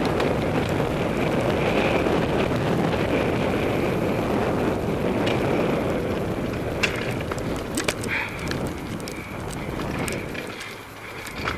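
Cyclocross bike rolling over a dirt and grass course, with wind rushing over the microphone and tyre rumble. A few sharp clicks and rattles from the bike come in the second half, and the rushing eases near the end.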